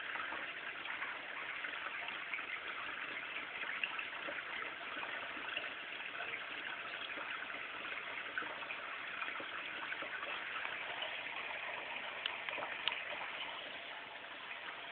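Steady running water, an even gush or splash, with two small clicks about twelve seconds in.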